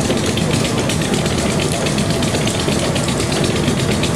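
Thomas and Smith Ericsson-type hot air engine running steadily, its flywheel turning, with an even rhythmic mechanical clatter.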